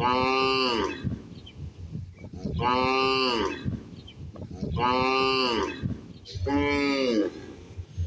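A cow mooing four times, each moo under a second long and about two seconds apart, the pitch dropping at the end of each call.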